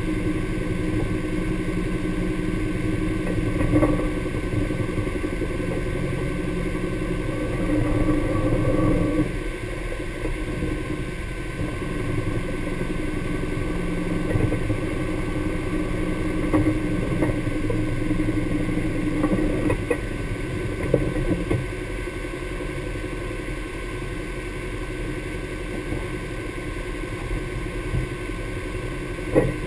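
Honda Pioneer 1000 side-by-side's parallel-twin engine running steadily at low speed, a little quieter after about nine seconds. A few short knocks come through, the sharpest near the end.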